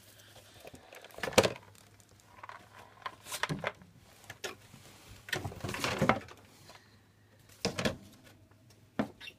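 Irregular rustles and knocks in about five short bursts, over a faint low steady hum.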